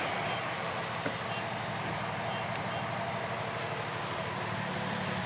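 Car driving at a steady speed: a steady low engine and road noise.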